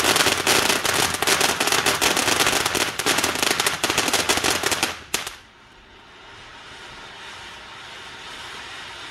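Ground fountain firework spraying sparks: a loud, dense crackling for about five seconds that stops abruptly, then a quieter steady hiss as the fountain keeps burning.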